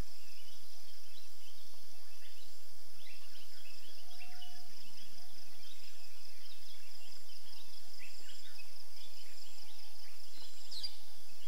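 Evening insect and bird chorus: a steady high-pitched insect drone with many short bird chirps scattered over it, and one brief sharp rising note near the end.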